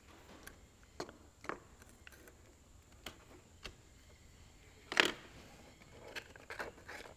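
Faint scrapes and clicks of a knife cutting around a grease cartridge tube, with one louder knock about five seconds in.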